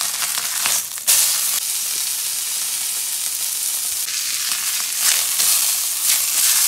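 Steak frying in hot fat in a pan: a steady high sizzle with small pops, which jumps louder about a second in.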